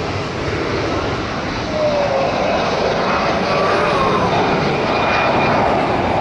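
Jet engines of a Cathay Pacific Airbus A330-300, Rolls-Royce Trent 700 turbofans, at takeoff thrust as the airliner rotates and lifts off: a loud, steady rushing engine noise that grows louder about two seconds in.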